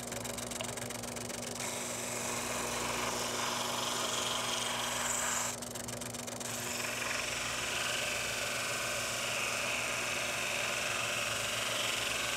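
Sanding drum spinning in a drill press, its motor humming steadily while a sycamore lure body is held against it, giving a continuous sanding hiss. The hiss drops off for a moment about five and a half seconds in as the piece is lifted and turned, then comes back stronger.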